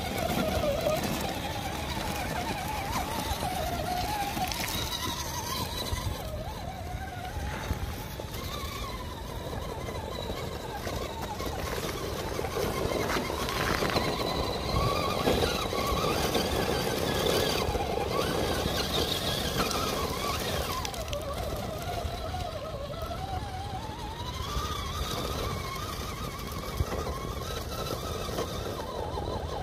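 Electric motor and gear drivetrain of a 1/10-scale FTX Hi-Rock RC crawler whining, the pitch rising and falling with the throttle as it crawls over loose rock.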